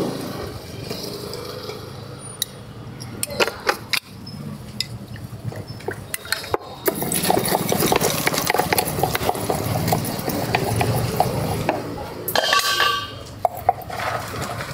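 A metal spoon clinking against a small stainless-steel pot as spices are spooned into a chaat mix with light taps. From about halfway through comes a dense rattling as the covered pot is shaken to toss the masala.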